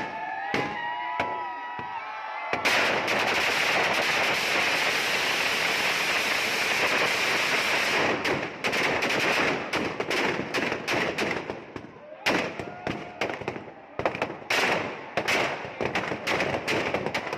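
Firecrackers packed into a burning Ravana effigy going off: a dense, continuous crackle of bursts that breaks up about halfway into separate sharp bangs, coming more sparsely toward the end. Shouting voices are heard over the first two seconds.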